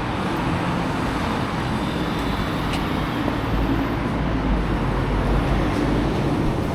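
Steady street traffic noise with a low rumble swelling in the middle.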